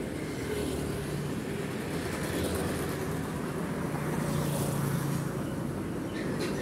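Roadside traffic: small motorcycles passing close by over the steady engine hum of cars and trucks on the road. It is loudest about four to five seconds in, as a motorcycle goes past.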